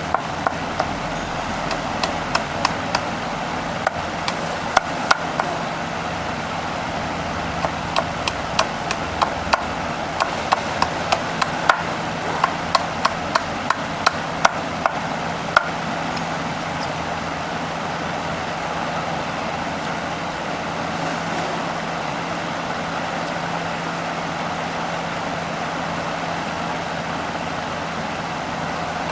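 A steady machine hum with a run of sharp knocks or taps, most of them in the first half and at times several a second.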